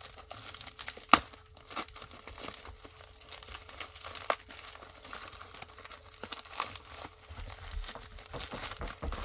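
Packaging crinkling and rustling as it is handled and pulled open, with sharp taps about a second in and again about four seconds in.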